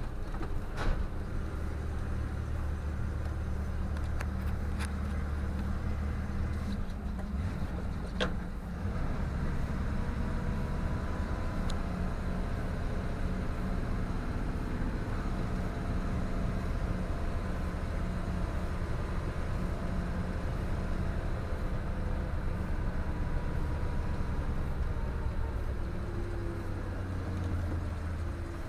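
PAZ 32053-70 school bus engine running steadily as the bus drives, a low drone with a few sharp knocks or rattles in the first nine seconds. The engine note drops slightly near the end.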